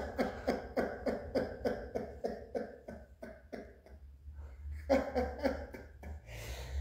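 A man laughing hard: a long run of ha-ha pulses, about three a second, that fade out about four seconds in, then two more bursts of laughter near the end.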